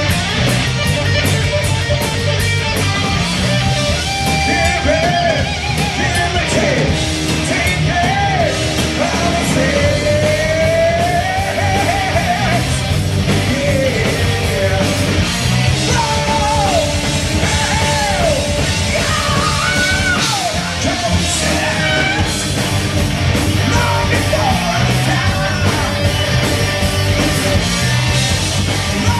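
Heavy metal band playing live: distorted electric guitars, bass and drums under a man singing in a shouted, yelling style. It is recorded from the audience, so it sounds like a club PA heard from the crowd.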